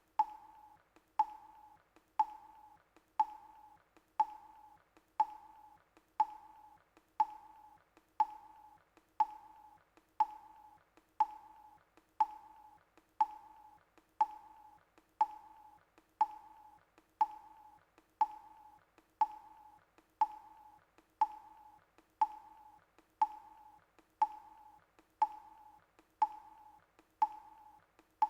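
Countdown timer's ticking sound effect: one sharp tick a second, each carrying a short beep-like tone that fades quickly, kept up steadily throughout.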